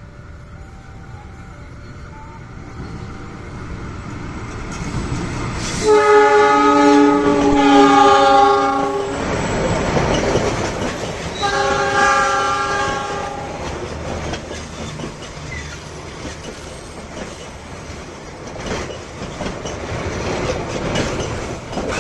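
Passenger train approaching and passing with its diesel locomotive sounding two long blasts on a multi-note air horn: the 'semboyan 35' horn signal. The first blast lasts about three seconds and changes note partway through, the second is shorter. Under both the wheels rumble and clatter as the carriages go by.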